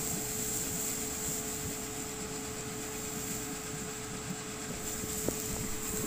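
Off-road SUV's engine running steadily, with a steady whine over a low rumble.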